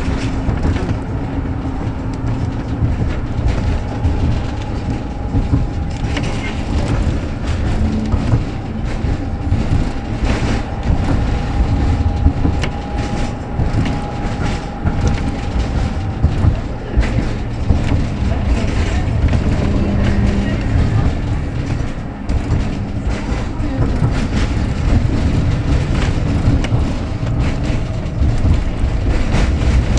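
Tram running along its track, heard from inside the car: a steady rumble of wheels on rail with frequent clicks and knocks, and a faint steady whine for a stretch in the middle.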